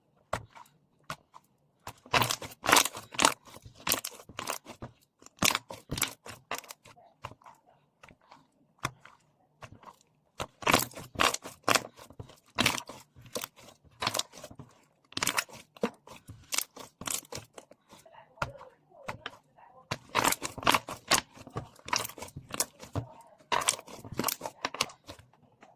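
Slime being squeezed and stretched by hand, giving runs of sharp crackling pops and clicks with short pauses between.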